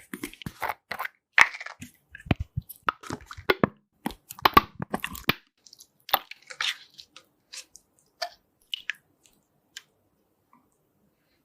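Slime being squished and mixed by hand: quick wet clicks and crackles, dense for the first five seconds, then sparser and dying away about nine seconds in.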